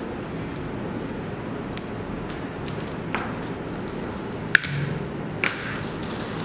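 About half a dozen light, sharp taps and clicks scattered over a steady background hiss, the loudest about four and a half seconds in.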